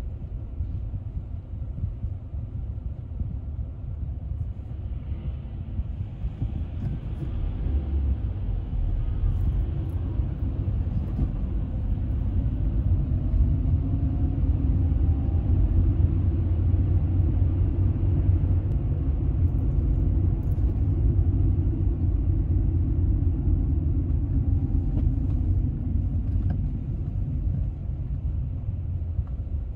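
Car driving on city streets: a steady low road-and-engine rumble that grows a little louder through the middle as the car speeds up, then eases off near the end.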